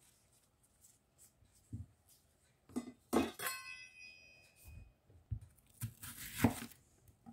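Peeled onions set down on a wooden cutting board with soft thumps, and a sharp clink about three seconds in that rings on for about a second. Near the end a kitchen knife slices down through a raw onion with a crisp crunch.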